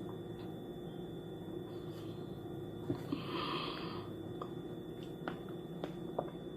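A person eating quietly: a few faint mouth clicks, and a soft breath through the nose about three seconds in.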